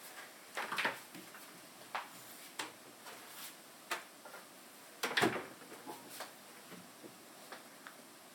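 Tall cupboard doors being unlatched and swung open: a scatter of clicks and knocks, the loudest about a second in and again about five seconds in.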